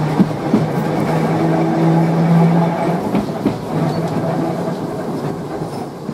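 1904 wooden tramcar running along the track: a steady low electric motor hum, broken off now and then, over the rumble of the wheels on the rails and scattered knocks from the rail joints. It gets a little quieter near the end.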